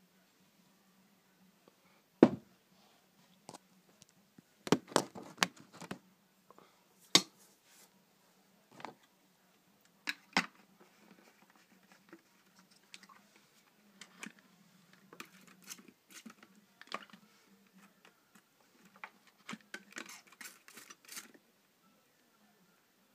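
Handling noises from tarantula enclosures: scattered sharp knocks and clicks of a glass tank and its fittings being moved, then a run of softer rustling and clicking near the end as a ventilated plastic tub lid is handled.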